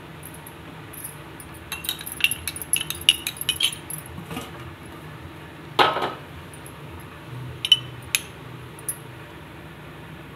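Kitchen utensils and dishes clinking: a quick run of light clinks, one louder clattering scrape about six seconds in, then a few more clinks.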